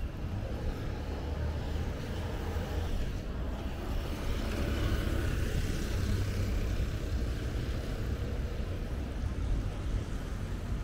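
City street traffic: motor vehicles passing with a steady rumble that swells a little about four seconds in.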